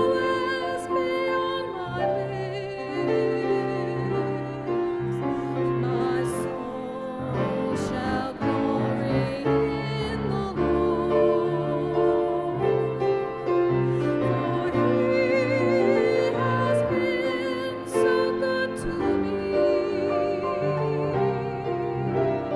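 A woman singing a slow sacred song with vibrato on held notes, over instrumental accompaniment.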